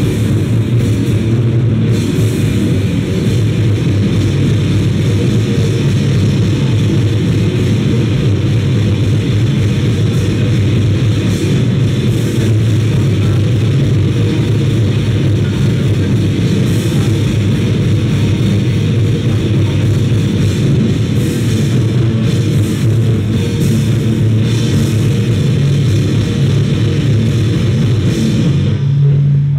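Live noisecore/grindcore band playing loud and dense: heavily distorted guitar and pounding drums with a heavy low end. The song stops abruptly at the very end.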